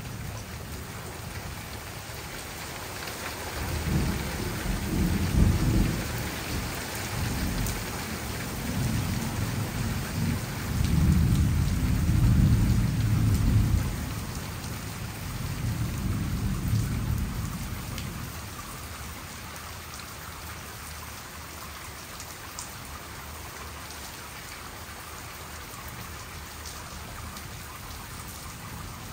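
Steady rain falling, with rolling thunder rumbling in several long waves through the first half, loudest about twelve seconds in. After that there is only the rain.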